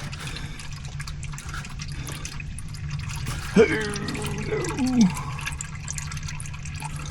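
Old engine oil pouring in a steady stream from the oil-pan drain hole of a 1987 John Deere 855 compact tractor and splashing into a catch pan. A brief voice sound comes about halfway through.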